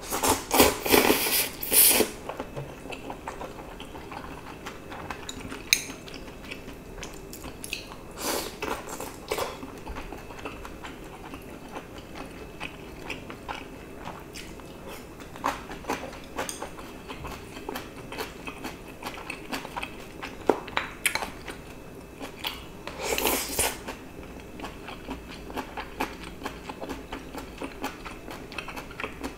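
Person eating noodles and stir-fried webfoot octopus and pork belly: a loud stretch of slurping noodles at the start, then chewing with small clicks of chopsticks against a bowl, and two more loud noisy stretches of eating, one about a third of the way in and one near two-thirds.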